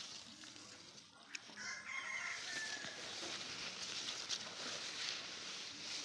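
A rooster crowing once, starting about a second and a half in, as one long call that falls slightly at the end, over a steady high hiss.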